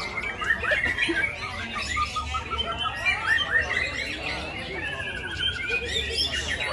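Songbirds chirping and calling, many short notes overlapping one another, with a rapid even trill lasting about a second near the end.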